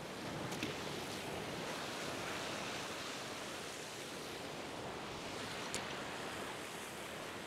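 Steady wash of ocean surf on a rocky tide-pool shore, with two faint clicks.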